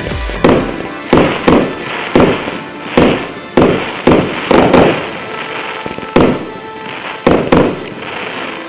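A 122-shot combined-calibre (0.8–1 inch) fireworks cake firing: an irregular run of sharp bangs, roughly two a second, each with a short ringing tail.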